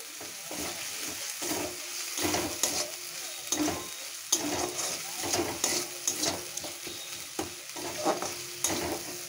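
Metal spatula scraping and clinking against a metal kadai, stirring a thick onion-tomato spice paste as it fries, over a steady sizzle of hot oil. The scrapes come irregularly, the sharpest clink a little past four seconds in.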